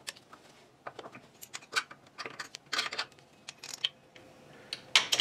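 Air-conditioning compressor being handled and set onto its mounting bracket on the engine: irregular sharp metal clicks and clinks, several a second, with the loudest near the end.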